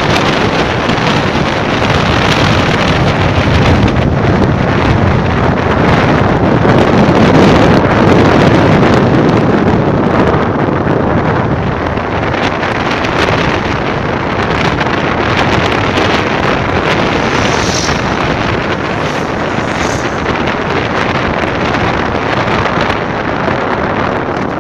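Heavy wind noise on the microphone of a moving vehicle, with the vehicle's running sound beneath it, loudest about a third of the way in.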